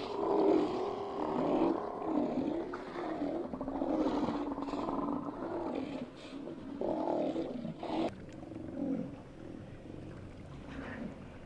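A colony of Steller sea lions roaring, many deep calls overlapping, louder in the first half and quieter near the end.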